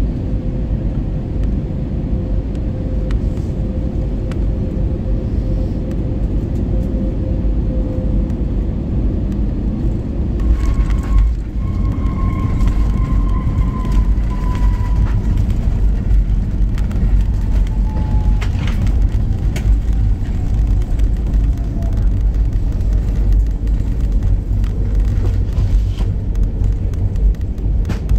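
Cabin noise of an Airbus A320neo landing: a steady engine and airflow rumble, then touchdown about ten seconds in. The noise jumps as the jet rolls out on the runway with spoilers up, with an engine whine that falls slowly in pitch as the engines wind down over the next ten seconds.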